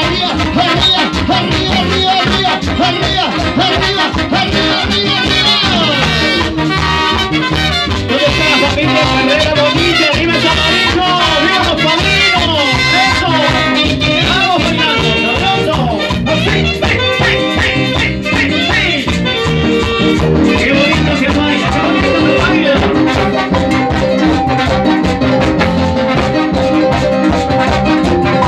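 A live Latin dance band plays loudly through a sound system: a brass section of trumpets, trombone and saxophone over timbales, electric bass and percussion.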